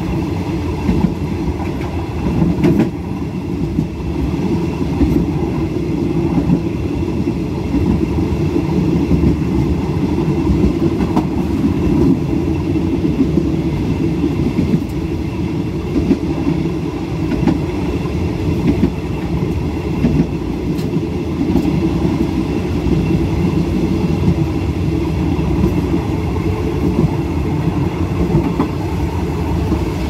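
Train running along the track: a steady low rumble of wheels on rails, with a few faint clicks.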